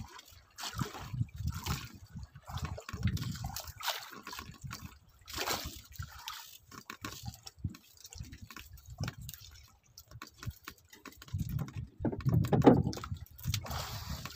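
Water sloshing and splashing in irregular bursts, with low thuds; the loudest splash comes near the end.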